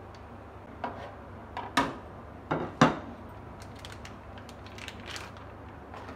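A few sharp knocks of a metal hand grater and a block of cheese being put down on a wooden chopping board and a plate, the loudest about three seconds in, followed by light crinkling of a plastic cheese wrapper.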